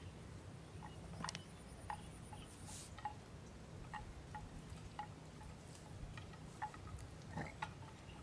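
Faint, irregular clinks of a bell hung at a grazing water buffalo's neck, about one every half second to a second as the animal moves its head.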